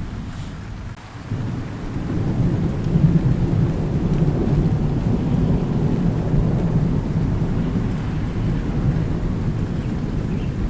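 Steady rain falling during a thunderstorm, with a long low rumble of thunder that swells about a second in and carries on under the rain.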